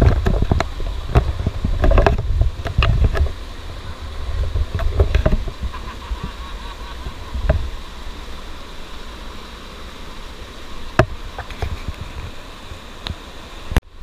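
Shallow forest stream rushing over rocks, a steady wash of water noise, with low rumbling on the microphone through the first four seconds or so and scattered sharp knocks.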